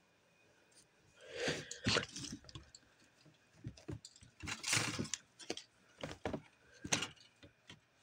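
Scattered rustles, taps and soft knocks of handling: clothes, toys and a closet door being brushed and moved, in short irregular clusters of sound with quiet gaps between.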